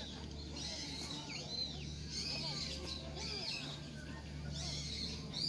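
Small birds chirping, a run of short calls that rise and fall in pitch, over a steady low rumble.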